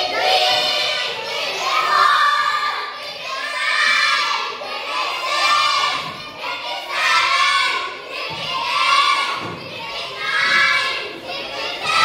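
A group of children shouting a short chant together in unison, the same burst repeating over and over about every one and a half to two seconds.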